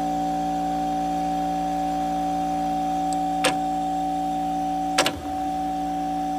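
Late-1960s Sears Coldspot window air conditioner running with a steady electrical hum, broken by two sharp clicks about three and a half and five seconds in.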